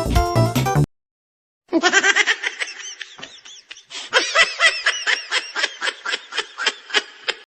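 Music cuts off about a second in; after a short silence, a person laughs hard and long in quick, repeated high-pitched peals.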